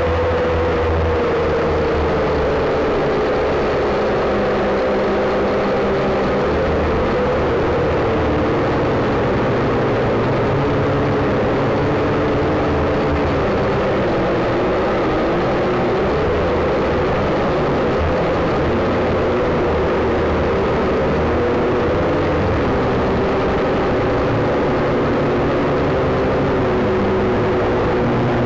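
WLtoys V222 quadcopter's motors and propellers whining steadily, heard through its onboard camera, the pitch drifting slowly down and back up as the throttle changes. A low rumble of wind on the microphone runs beneath.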